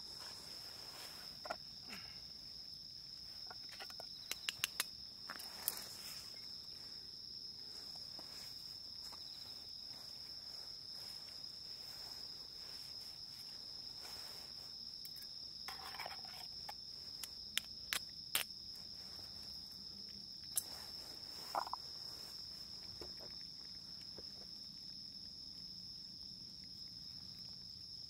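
Insects trilling steadily in one continuous high tone, with a few sharp clicks here and there.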